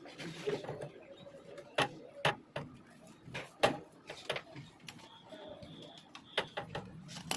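Scattered metallic clicks and knocks, about half a dozen, from hand tools and engine parts being fitted during reassembly of a motorcycle engine's timing-chain side.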